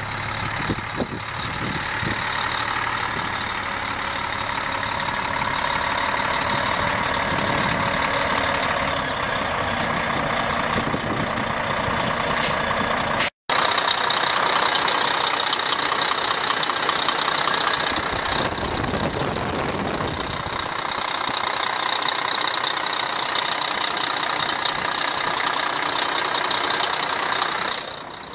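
2004 Volvo VNL semi truck's diesel engine idling steadily, heard close to the open engine bay. The sound cuts out completely for a split second about halfway through.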